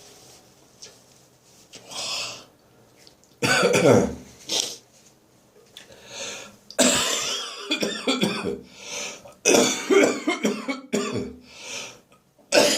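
A man's dry, lingering post-bronchitis cough: a few short bursts of coughing and throat clearing, then a longer, denser run of hacking coughs in the second half, with breaths drawn in between.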